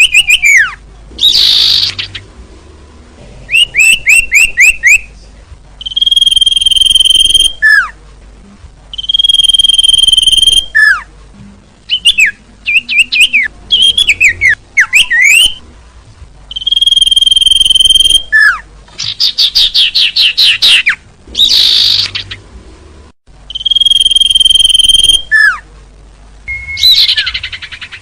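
Bird-lure recording of small songbirds calling in repeated loud phrases: a held high whistle, fast trills and quick down-slurred notes, one after another with short gaps.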